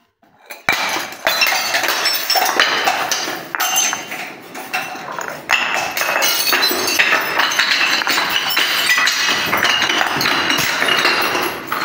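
Glass bottles packed with water beads falling and smashing on stone stairs: a long, dense run of glass clinking, breaking and ringing, with many small sharp ticks of shards and beads scattering across the steps. It starts suddenly about a second in and eases off near the end.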